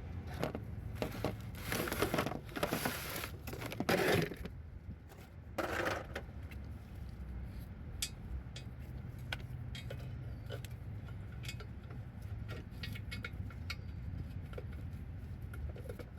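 Metal transmission parts being handled during reassembly of a Ford M5R1 five-speed gearbox: a few scraping, rustling bursts in the first few seconds, then scattered light metallic clicks and clinks.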